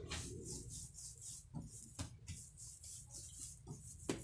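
Hands pressing and gathering soft shortbread dough on a kitchen countertop: faint rubbing, with a few light pats.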